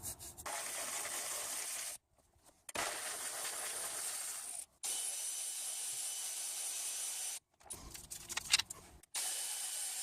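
A steady hiss that cuts off abruptly to silence and resumes several times, with a few faint clicks shortly before the last stretch.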